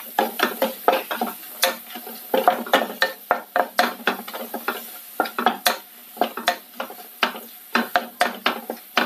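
Wooden spatula scraping and knocking against a ceramic-coated frying pan, stirring a thick chilli-coriander masala, about three strokes a second, irregular. There is a faint sizzle underneath: the paste is frying in its own oil now that the added water has cooked off.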